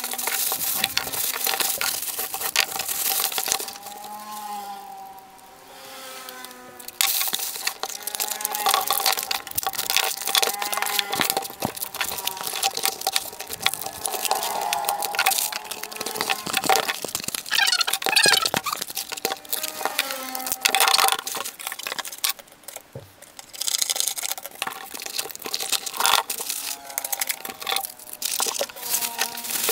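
Plastic bag crinkling and corrugated cardboard rustling and creasing as hands wrap and pack a small item, a dense run of small crackles and cracks. It goes quieter twice, about four seconds in and about twenty-two seconds in.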